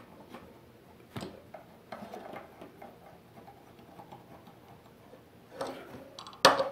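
Hands working a padded fabric cover on a gas canister fitted to a metal stand: faint rustling and a few light knocks, then a sharp click near the end.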